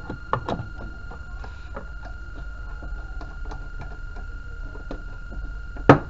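Clicks and knocks from a CRT TV's plastic back cabinet and a screwdriver being handled, a few sharp ones at the start and a loud knock near the end. A steady high whine and a low hum run underneath.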